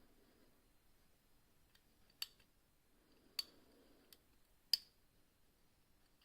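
Home-made picking tools working in a five-lever padlock: three sharp small clicks about a second apart, the last the loudest, with a faint tick between the second and third.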